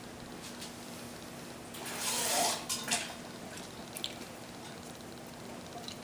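Silicone spatula working thick coconut cream into a pot of curry: quiet wet scraping and a few small utensil clicks, with one brief wet hiss about two seconds in.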